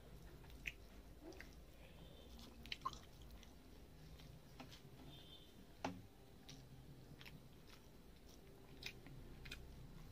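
Faint close-up eating sounds: fingers mixing rice and gravy on a steel plate, and chewing, with scattered small clicks, the loudest about six seconds in.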